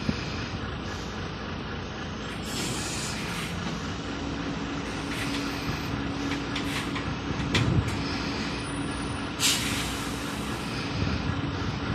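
Semi-trailer tipper truck's diesel engine running steadily, with a steady hum joining in about four seconds in. Two loud bursts of compressed-air hiss come, one about two and a half seconds in and one near ten seconds, and a couple of sharp knocks fall around seven and a half seconds.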